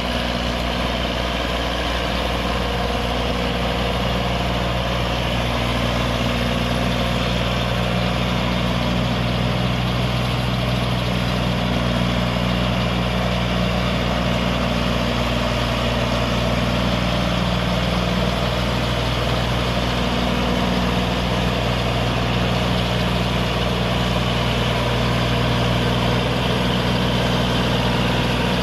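New Holland 8080 combine harvester's engine running steadily, close by, while the machine works through deep, sticky paddy mud.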